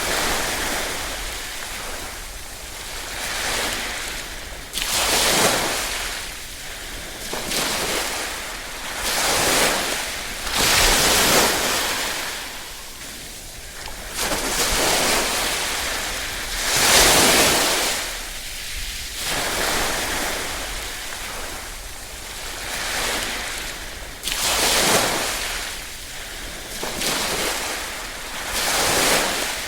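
Small waves lapping on a shore, each surge of hissing wash swelling and falling away every few seconds.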